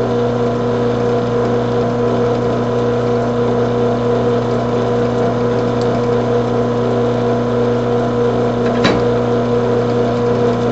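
Drill press motor running at a steady hum while it spins a swaged bullet whose nose is being shaved by a hand-held cutter. One short click about nine seconds in.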